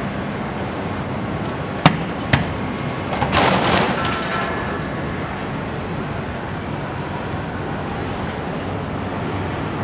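Steady noise from a large outdoor student cheering section between chants, with two sharp impacts about half a second apart a couple of seconds in, then a brief rush of noise.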